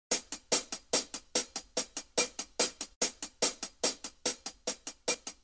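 Intro music: a steady beat of sharp, bright percussion hits, about two and a half a second, with no bass or melody under it.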